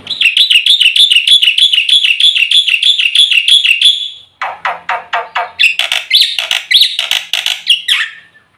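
Black-winged starling (jalak putih) singing loudly: a fast, evenly repeated trill of about four to five notes a second for some four seconds, then a run of quick falling notes and mixed chattering phrases.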